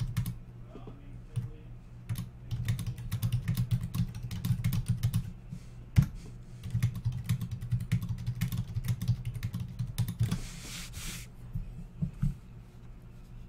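Computer keyboard typing in quick runs of keystrokes with short pauses, as numbers are entered one per line, with one sharper key strike about halfway through. A short hiss comes about ten seconds in.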